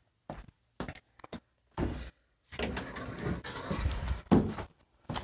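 Slip-on Vans shoes being handled and put away: a few light knocks, then a few seconds of rustling and bumping with a couple of louder knocks.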